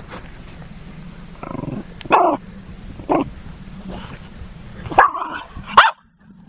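Border terrier barking: about five short, sharp barks at irregular intervals. It is recorded on an old phone's microphone, with a steady low hum behind.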